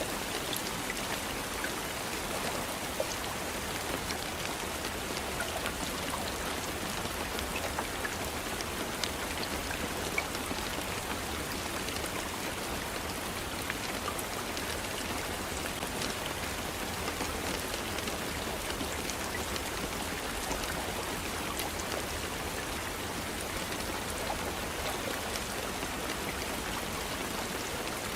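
Steady rainfall with many individual drops ticking on surfaces, a constant even hiss without breaks.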